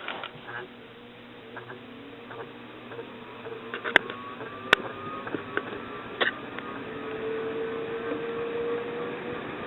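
1991 Crest 2000 series 42-inch ceiling fan motor spinning up from a start to high speed: a hum with a whine that rises in pitch and grows louder, almost like a jet engine taking off. Two sharp clicks about four seconds in.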